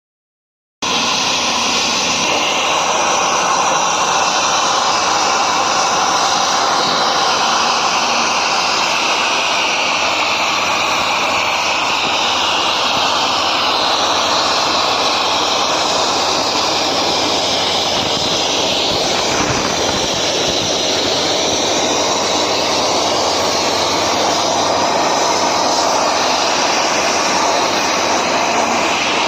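Plasma cutter torch running: a loud, steady rushing hiss of the air arc that starts abruptly and holds on, its tone slowly shifting as the torch moves.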